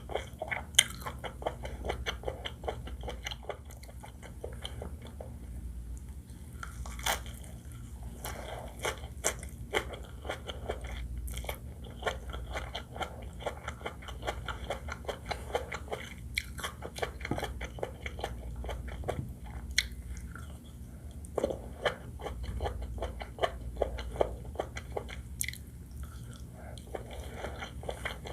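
Close-miked chewing and biting of seafood fried rice: a continuous run of irregular wet mouth clicks and crunches.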